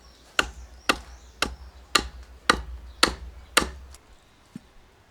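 Hand tool chopping into wood while carving the body of a viola de cocho: seven sharp blows about two a second, then one faint blow and they stop.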